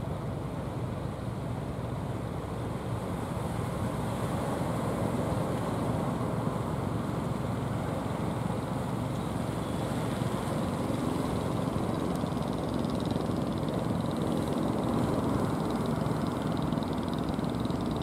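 Motors of small outrigger fishing boats running steadily under way, growing a little louder as the nearest boat comes closer.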